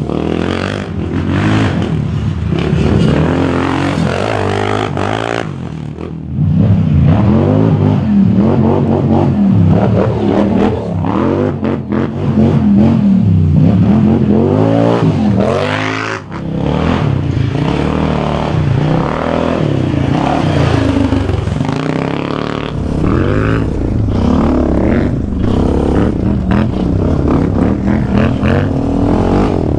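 An ATV engine being ridden hard on dirt, revving up and dropping back again and again as the throttle is worked and the gears change. The throttle is briefly cut about six seconds in and again about sixteen seconds in, before it pulls hard again.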